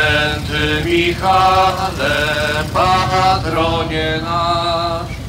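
Singing in long held notes, about half a second to a second each, some sliding up into their pitch, over a low rumble of slow-moving vehicles.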